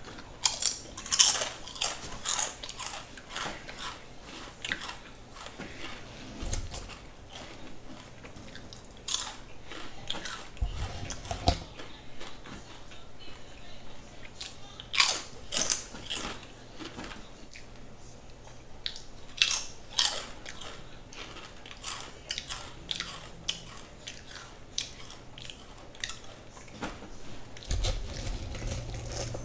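A person biting and chewing a giant vegan turkey club sandwich close to the microphone: crisp, irregular crunches with wet mouth sounds between them.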